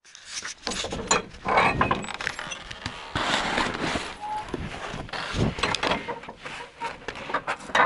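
Footsteps, clothing rustle and knocks from a camera carried by someone walking out of a door and down steps, with a brief squeak about four seconds in.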